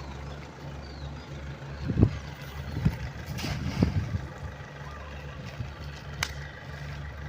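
An engine idling steadily with a low hum, with a few dull knocks between about two and four seconds in and a sharp click about six seconds in.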